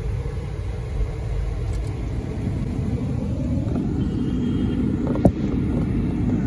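Steady low rumble of city street traffic, with a single sharp click about five seconds in.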